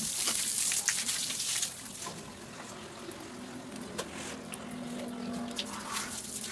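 Water spraying from a garden hose and splashing on a tiled floor. The spray is loud for the first couple of seconds, then dies down to a quieter trickle with a few light knocks.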